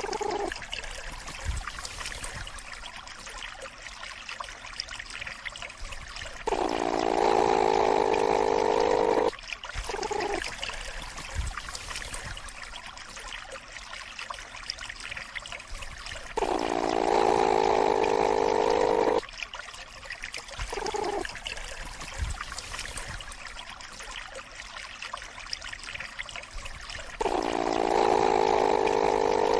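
Platypus growl: a pitched, grumbling call about three seconds long, heard three times about ten seconds apart, each followed by a shorter call. A steady hiss runs underneath.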